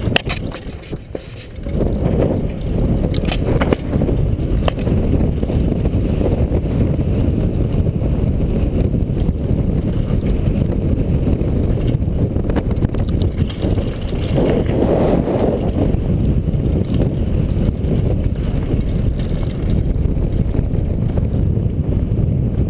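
Downhill mountain bike running fast over a dirt and rocky trail: a constant rumble and rattle of the tyres and bike on the ground, with wind on the helmet-mounted microphone. Sharp knocks come as the bike hits bumps and stones. The rumble dips briefly about a second in.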